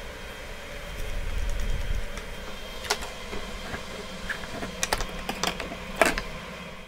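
Light clicks and taps of metal cabinet hinges and a combination square being handled and set down on a wooden cabinet door, over a steady background hum. The clicks come singly about three seconds in, then in a quick cluster, with the loudest near the end.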